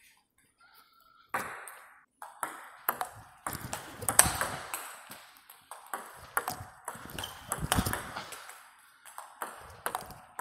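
Table tennis rally: the ball clicking sharply off the bats and the table in a quick, even back-and-forth, about two hits a second, starting about a second and a half in.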